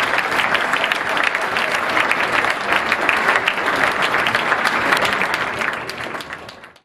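Audience applauding with dense, steady clapping that fades out over the last second or so.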